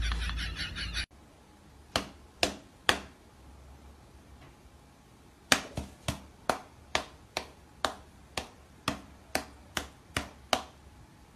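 After a second of music that cuts off, a series of sharp slaps from a person's hand and a cat's front paws batting at each other. Three come close together, then after a pause a steady run of about a dozen at roughly two a second.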